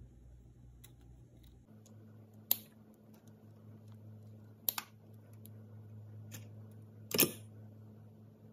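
Scissors snipping a lime into pieces, a few sharp snips a second or two apart, over a steady low hum. The loudest, longer clatter comes near the end.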